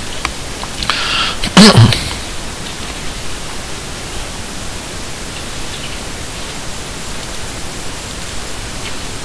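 Steady hiss of recording background noise, with a short loud thump about one and a half seconds in.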